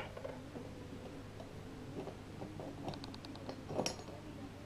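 Metal hand tools being handled on a wooden workbench. There is a click at the start, a quick run of about five light ratchet ticks about three seconds in, and a sharper clack just after.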